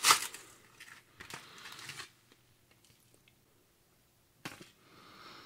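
Plastic MRE cracker pouch being handled and the vegetable crackers taken out: a sharp crinkle at the start, then scattered rustling and crackling with a quiet stretch between.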